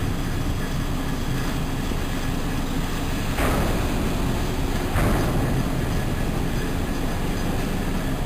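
Steady low machinery rumble of container cargo operations at the dock, with two louder metallic knocks about three and a half and five seconds in.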